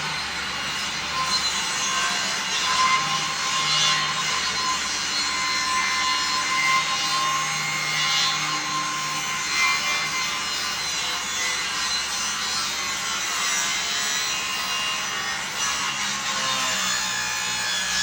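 Power saw running steadily as it cuts a long 45-degree angle along a 1x12 board.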